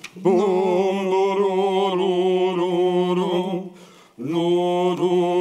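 A single voice singing long, held notes with vibrato, with no words heard, in two phrases broken by a short pause a little before four seconds in.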